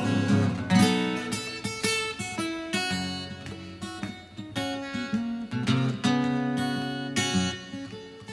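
A handmade guitar playing a blues passage without voice: strummed chords and plucked notes, each struck several times a second and left to ring.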